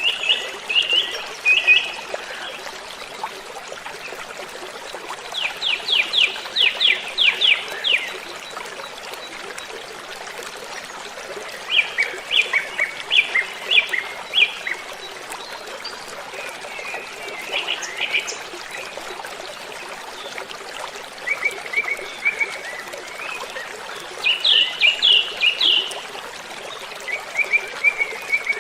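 Steady rush of a waterfall, with birds singing over it in short phrases of rapid chirps that come every few seconds.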